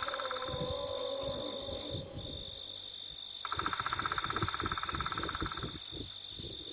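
Insects calling: a steady high-pitched whine throughout, with a rapid pulsing trill that stops about half a second in and starts again for about two seconds from the middle.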